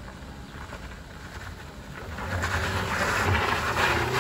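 Small front-wheel-drive MPV climbing a steep, loose gravel slope, its engine working hard and its tyres scrabbling on the stones, growing steadily louder from about two seconds in as it nears.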